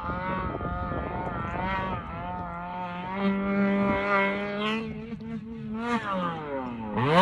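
Snowmobile engine running under changing throttle: its pitch wavers, holds steady for a few seconds, then drops and climbs sharply again near the end as it revs up.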